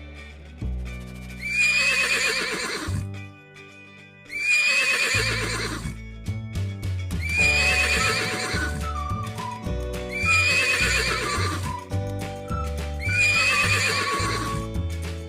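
A horse whinnying five times, about every three seconds, each a quavering call of a second or so, over background music.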